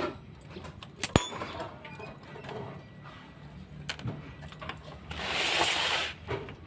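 Hand tools clicking and clinking against the Yamaha Byson motorcycle engine during top-end disassembly, with one sharp click about a second in and a hiss lasting about a second near the end.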